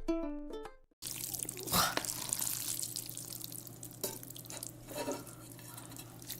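Ukulele intro music ends abruptly about a second in. Then there is a low steady room hum with scattered light clicks and wet taps, one louder click about two seconds in.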